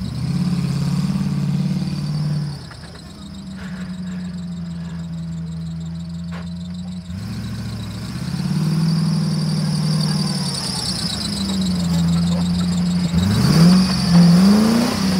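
Land Rover Defender's engine running as the truck drives off-road, dropping off about two and a half seconds in, picking up again a few seconds later, and revving up sharply twice near the end.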